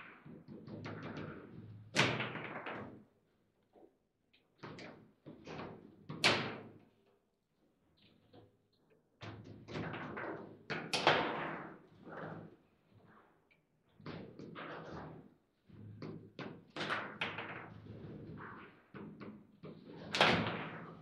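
Table football (foosball) in play: the ball and the players' rods and figures knocking and clacking at irregular intervals. A few hard shots stand out sharply above the rest.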